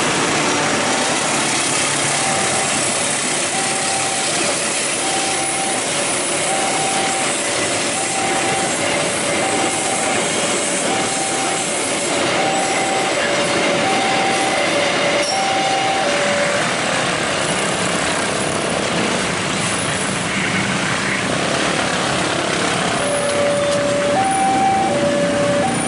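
Long freight train of fuel tank wagons rolling past behind a diesel locomotive, a steady rumble and rattle of wheels on rail. Over it, a two-tone warning signal beeps alternately high and low, about one pair every second and a half; it stops about sixteen seconds in and starts again near the end.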